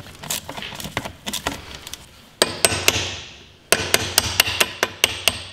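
Metal hand tools clicking and knocking on the bolts of the electric starter on a Peugeot Speedfight 2 scooter engine as the starter is unbolted. Scattered sharp clicks give way to a quick run of clicks in the second half.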